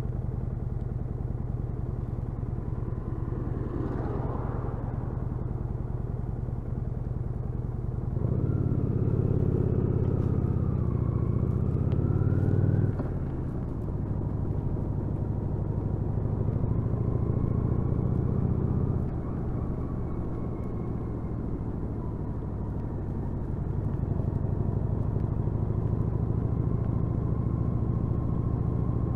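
Kawasaki VN800 Drifter's 805 cc V-twin engine running while under way. A little over a quarter of the way in it pulls harder with the pitch rising, then drops off suddenly before halfway. It is louder again for a few seconds, then falls back to a steadier note and picks up again in the last third.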